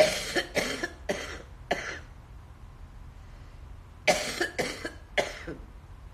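A woman coughing in two fits: four sharp coughs, then after a pause of about two seconds three more. She has choked on something going down the wrong way.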